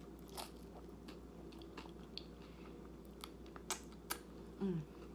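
Close-up chewing of a bite of chips and layered bean dip, with scattered crisp crunches about a second apart. Near the end comes a short falling hum of the voice.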